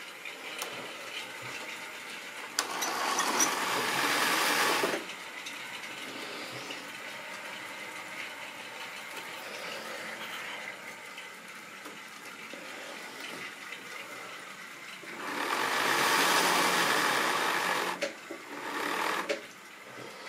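Model railway trains running on the track: a steady whir of small wheels and electric motors. It grows louder for two stretches of two to three seconds each, about three seconds in and again about fifteen seconds in, then briefly once more near the end.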